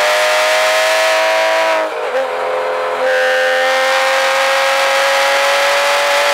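Porsche Cayman S 3.4-litre flat-six under hard throttle, heard from inside the cabin, slowly climbing in pitch. About two seconds in the throttle lifts and the engine goes quieter for about a second, then comes back on full power at a lower pitch and climbs again.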